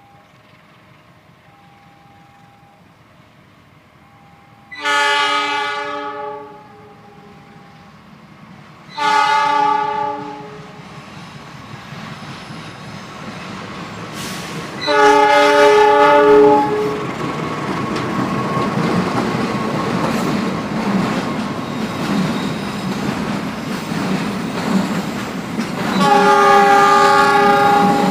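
Diesel train's horn sounding four separate blasts, each about one and a half to two seconds long. In between, the rumble of the train running past grows and holds, with wheels clacking on the rail joints.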